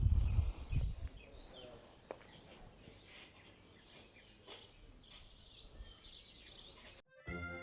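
Quiet outdoor ambience with faint small-bird chirps and a couple of light clicks. A low rumble fades out in the first second. Near the end the sound drops out briefly and background music begins.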